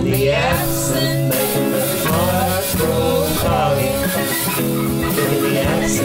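A band playing a rock song: electric guitar, bass and drums under a wavering melodic lead line.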